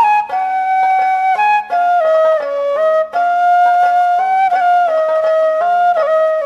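Background music: a flute-like woodwind playing a slow melody over a steady low drone.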